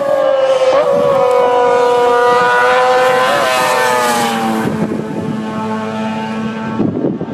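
Racing sidecar outfits' engines screaming at high revs as they pass. The high engine note falls slowly in pitch and fades about two-thirds of the way in, and a deeper engine note carries on after it.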